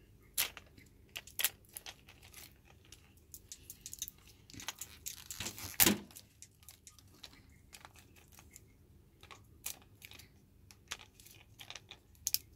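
Plastic wrapping crinkling and tearing as fingers pick at a small plastic toy capsule, with scattered light clicks of the plastic being handled. The loudest rustle comes about six seconds in.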